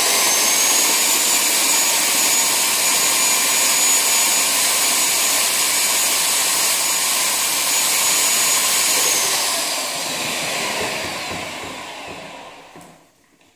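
Electric paddle mixer running at full speed with its paddle spinning in a bucket of water to rinse it: a loud, steady motor noise with a high whine. About nine seconds in the whine drops and the motor winds down, fading out over the next few seconds.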